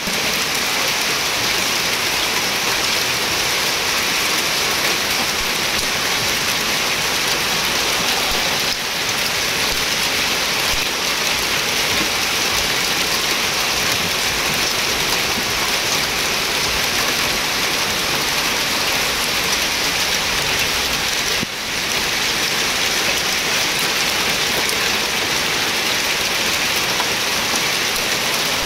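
Heavy rain and hail falling on a paved street, a dense steady downpour that dips briefly twice.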